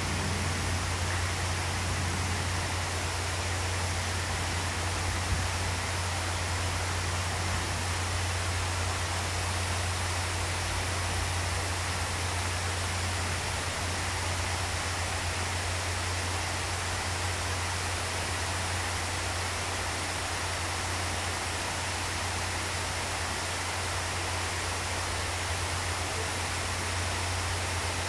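Pool fountains and a falling water feature splashing: a steady, even rush of water, with a steady low hum underneath.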